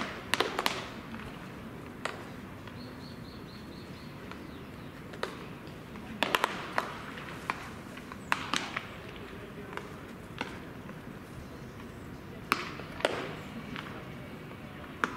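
Baseballs popping into leather gloves during warm-up catch: sharp, short smacks at irregular intervals, some in quick succession.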